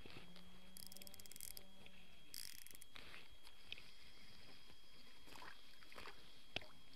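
Light handling noise from a fishing rod and reel during a jig retrieve: a quick run of fast fine ticks about a second in, a short hiss, and a few scattered light clicks. Underneath is quiet outdoor ambience with a faint steady high tone that stops about three seconds in.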